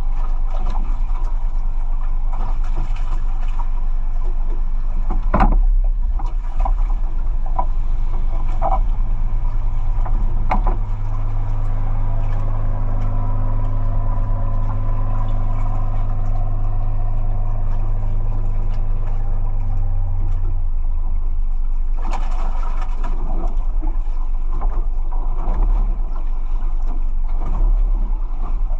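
A boat's motor running steadily, a loud low drone with a few sharp knocks.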